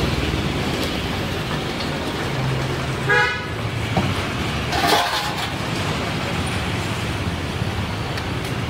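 Roadside traffic noise with a short vehicle horn toot about three seconds in, and a second brief sound a couple of seconds later.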